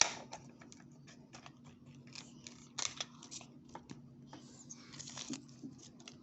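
Plastic packaging of a toy surprise ball being crinkled and torn open by hand: a run of quick small clicks and rustles, with louder tearing sounds about three seconds in and again near five seconds.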